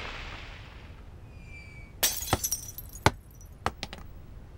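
Window glass shattering: a sharp crash about two seconds in, then a scatter of shards clinking down for another two seconds, as a cartoon sound effect.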